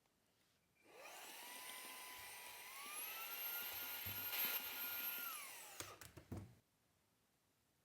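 Small high-speed electric tool motor whining as it works: it spins up about a second in, jumps higher in pitch near the middle, then winds down and stops a little after six seconds.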